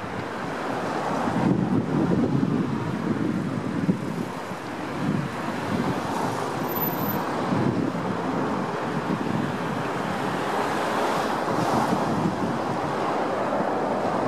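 Cars passing through a roundabout close by, their engine and tyre noise rising and falling as each goes past, with wind buffeting the microphone.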